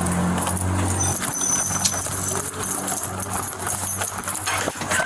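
Footsteps and knocks as people walk briskly through a building's doorway, picked up by a police body camera's microphone. A low rumble fades out about a second in.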